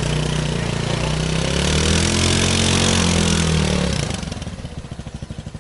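Sport go-kart engine running under throttle as the kart drives, its pitch rising and then falling. About four seconds in it drops to an even, pulsing idle as the kart stops.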